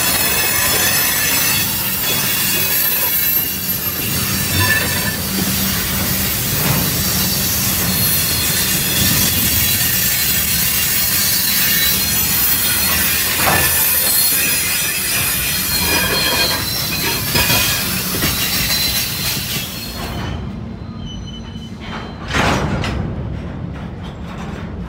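Freight cars, tank cars and covered hoppers, rolling past at track level, their steel wheels squealing against the rail over a rumble. The squeal dies away about 20 seconds in, leaving a quieter rumble, and a single knock comes near the end.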